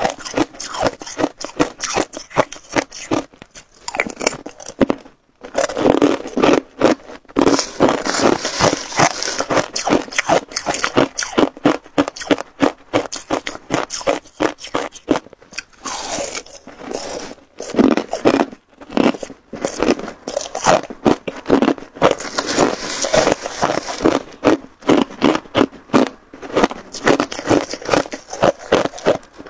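Hard ice being bitten and chewed close to the microphone: a fast, dense run of loud crunches and cracks, with short pauses about five seconds in and again around the middle.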